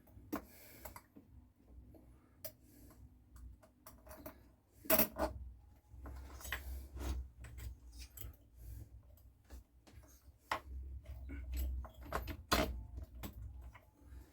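Irregular clicks, taps and light knocks of small metal parts and hand tools being handled while a Homelite chainsaw is reassembled, the loudest knocks about five seconds in and near the end, over a low rumble of handling noise.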